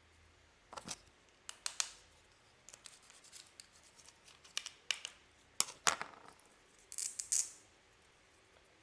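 Irregular sharp snips and crackles of toy or chocolate packaging being cut open with scissors, a run of separate cuts with a denser crackling cluster near the end.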